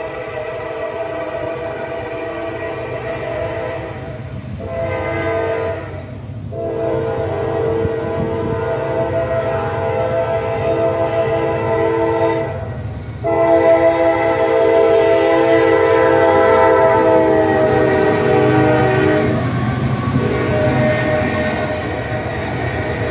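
Norfolk Southern freight train's locomotive horn blowing a chord of several notes in four blasts, the last two long, while the diesel locomotives approach. Near the end the horn stops and the engines rumble past close by.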